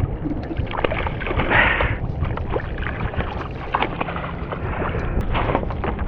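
Wind rumbling on the microphone over water splashing at a fishing kayak, with scattered knocks and clicks while a hooked speckled trout is brought to the net; a splashy burst comes about a second and a half in.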